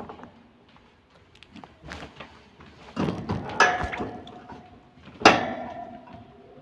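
A few sharp knocks and rattles, each ringing on briefly with a metallic tone, the loudest about five seconds in: the wire bird cage being bumped and rattled.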